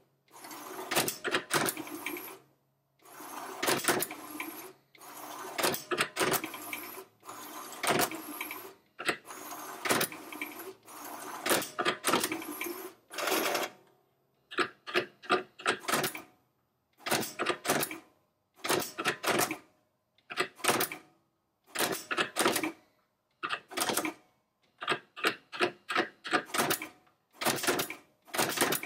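HP 7475A pen plotter's pen carousel and pen arm at work, turning the carousel and picking up and stowing pens: repeated bursts of motor whirring and clicking about one and a half seconds long, separated by short pauses, giving way about halfway through to quicker clusters of short clicks.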